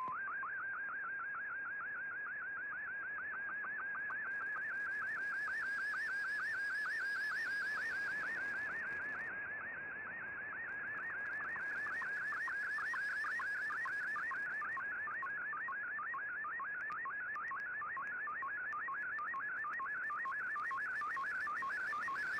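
Shortwave radio reproducing an MFSK picture transmission (a colour image sent by fldigi): a high tone warbling rapidly up and down in an even, repeating pattern as the picture's lines come through, over light static.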